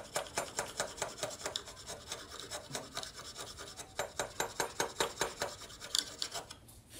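Hand-pushed wood chisel scraping and paring the bottom of a narrow slot in a board, in quick repeated strokes of about four or five a second. The strokes grow fainter in the middle, come back stronger, then stop shortly before the end.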